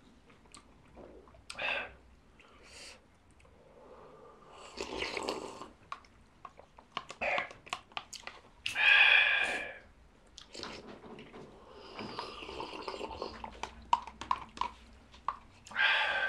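People slurping hot soup off wooden spoons, in a string of short breathy slurps, the longest and loudest about nine seconds in, with a sharp breath out at the heat near the end and light clicks in between.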